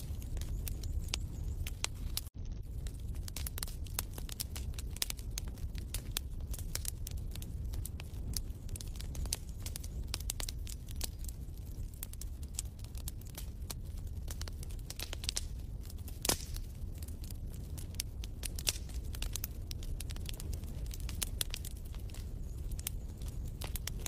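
Wood fire crackling in a fireplace: irregular sharp pops and snaps over a steady low rumble, with a momentary dropout about two seconds in.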